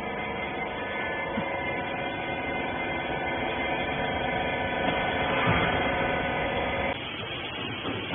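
Wiper bagging baler's motor and hydraulic pump running under load with a steady hum, cutting off suddenly about seven seconds in.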